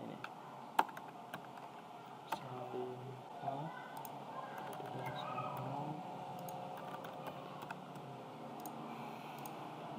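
Computer mouse clicks and keyboard key presses: a few scattered sharp clicks, the loudest about a second in, as names are typed into a table.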